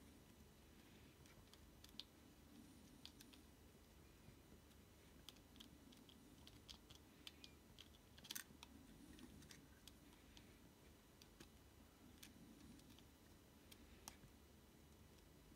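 Faint, scattered plastic clicks and small rattles from a Packard Bell Dot S netbook keyboard being worked by hand against its frame, the clicks bunching up a few seconds in with the loudest about eight seconds in.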